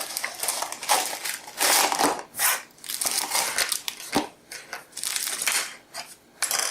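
Cardboard box being cut open and opened by hand: a run of irregular scraping, crackling and crinkling noises.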